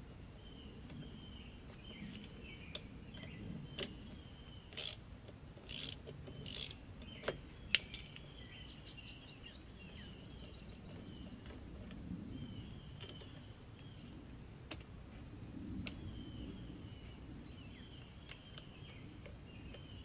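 Small metal clicks and clinks of hand tools working at a BMW R1200R's front brake caliper during a brake pad change. The sharpest click comes about halfway through, followed by a brief fast run of ticks.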